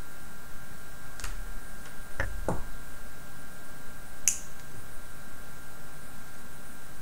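Plastic clicks and snaps from Tamiya track pieces being handled and fitted together: a couple of light clicks in the first few seconds and a sharper snap about four seconds in.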